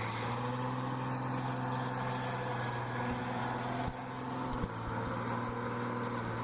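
A large vehicle's engine running steadily at an even pitch, with a couple of faint knocks partway through.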